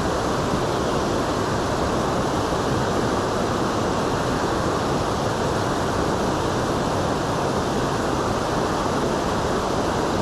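Steady rush of water pouring below a dam, an even, unbroken noise.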